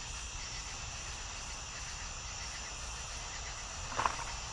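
Night insect chorus: a steady, high-pitched trill, with one short, sharp sound about four seconds in.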